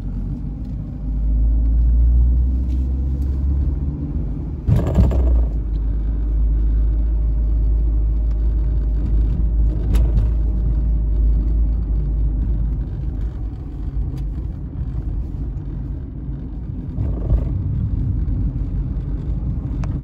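Car driving along town streets, heard from inside the cabin: a steady low rumble of engine and road noise that grows about a second in, with a brief louder noise about five seconds in.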